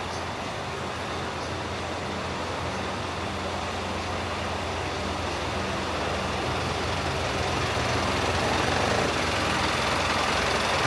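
Street traffic: a steady engine hum under an even wash of road noise, slowly growing louder.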